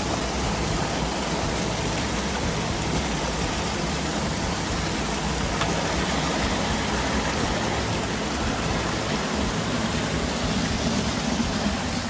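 Steady hiss of rain falling on shallow water.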